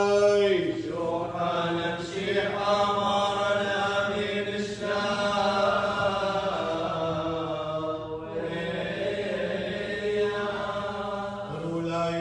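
Liturgical chanting of a wedding rite, with long drawn-out sung notes held at a steady pitch and melismatic lines between them.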